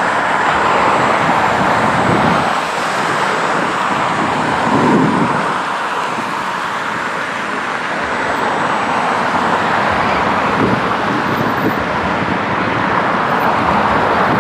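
Steady rush of road traffic passing, swelling and easing slowly, loudest about five seconds in.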